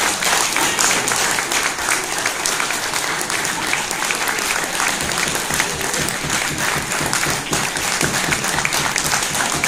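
Audience applauding steadily: dense, sustained clapping from a full hall.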